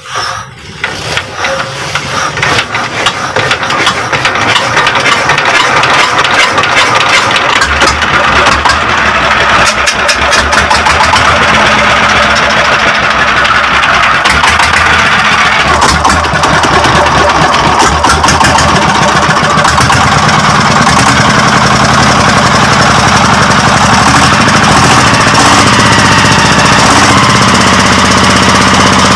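A ZS1115 single-cylinder diesel engine, its bore enlarged and valves reset for more power, catches and picks up speed over the first few seconds, then runs loud and steady with a rapid knocking beat.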